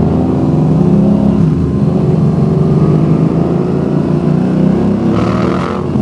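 Motorcycle engine pulling hard under acceleration in second gear.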